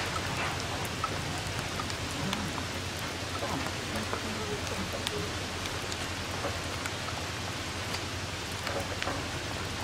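Steady rain falling, with many individual drops ticking sharply.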